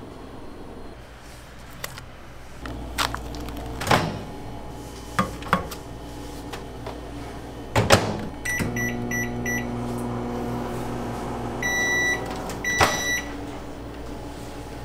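Microwave oven being used: knocks as the door is worked, four quick keypad beeps as it is set, then its steady hum while it heats. Near the end it gives a long beep and more beeps, along with a clunk as the door is opened.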